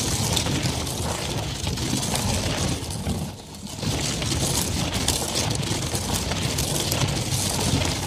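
Catapult being moved along a dirt road: a continuous crunching, rattling rumble over the ground, dipping briefly about three and a half seconds in.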